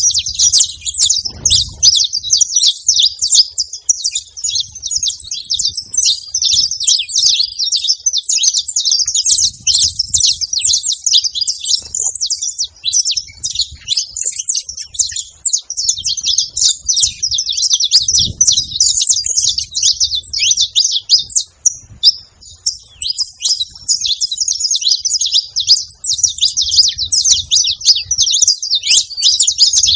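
A flock of saffron finches chirping and calling at a feeder: many overlapping high, quick chirps in a continuous chatter, thinning briefly a little past two-thirds of the way through.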